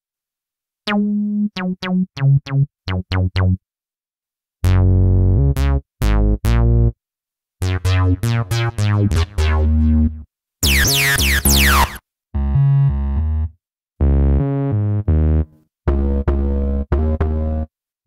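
Roland SRX Dance Trax synth-bass presets played one after another, each a short riff of staccato bass notes followed by a brief pause. About ten seconds in, the TB/SRX acid-bass patch sounds with bright resonant filter sweeps.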